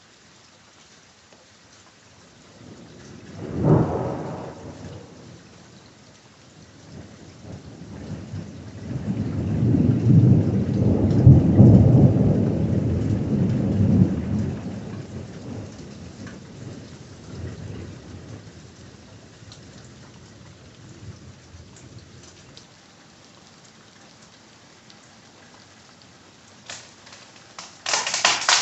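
Thunder in a rainstorm: a sharp clap about four seconds in, then a long low rolling rumble that builds and fades over several seconds, over steady rain pattering. A sharp crackling burst near the end.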